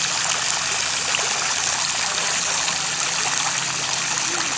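Spray from a floating lake fountain falling back onto the water: a steady splashing hiss, with a faint low hum underneath.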